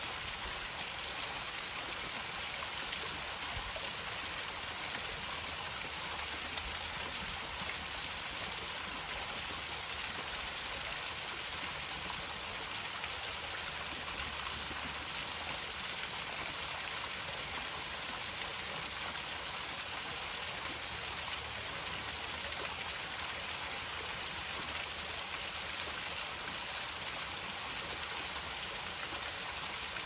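Steady rushing of running water, an even hiss with no breaks.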